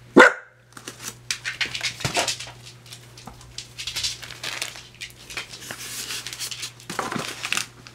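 A cat pawing and nosing at a plastic bag of cat litter, the packaging crinkling and rustling in irregular bursts. A single short, loud sound opens it.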